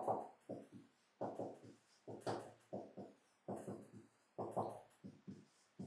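Marker pen writing on a whiteboard: a run of short, separate strokes, about two or three a second, with brief pauses between them.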